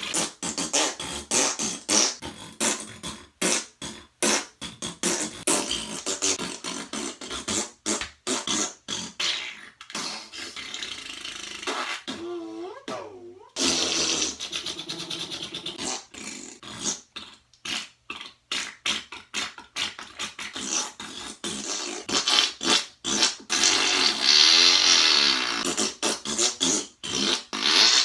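Imitation fart noises made one after another in quick short bursts, a few of them drawn out into wavering, squealing tones.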